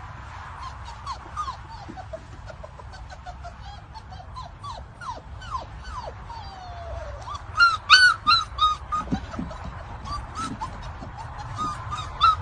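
Labrador puppies whining and whimpering, with many short high cries sliding up and down in pitch and a louder cluster of yelps about eight seconds in, over a steady low rumble.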